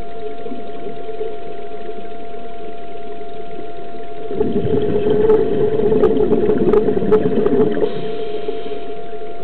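Underwater: a scuba diver breathing out through the regulator, a rough bubbling rush that starts about four seconds in and lasts about three and a half seconds, over a steady hum with a constant whine.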